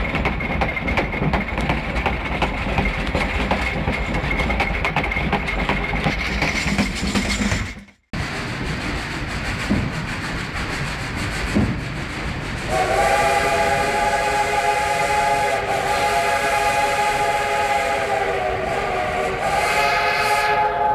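Narrow-gauge passenger train's wheels clattering and clicking over the rail joints, with the cars rattling. A little past halfway the steam locomotive's whistle starts a long chord of several notes that holds, with brief dips, to the end. The whistle is heard from inside a wooden coach.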